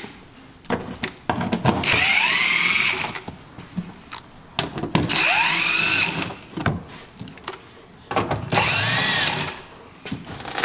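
DeWalt cordless drill backing out the screws that hold a van's carpeted door panel. It runs in three short spurts, each whining up in pitch and winding back down as the trigger is squeezed and let go.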